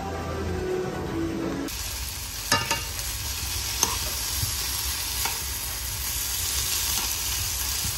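Sliced potatoes sizzling in oil in a non-stick frying pan, starting abruptly about a second and a half in. A spoon stirring them clicks and scrapes against the pan several times.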